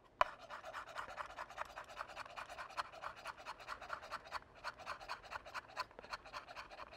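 Chef's knife rapidly cutting lime peel into julienne on a wooden cutting board: quick, even taps of the blade on the wood, about six a second.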